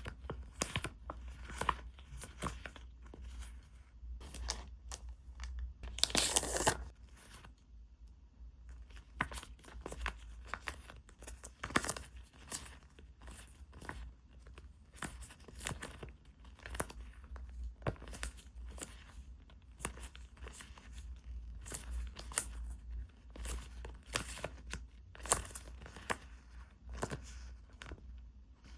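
Packaging being torn open and handled: scattered crinkling and rustling strokes. There is one longer, louder tear about six seconds in.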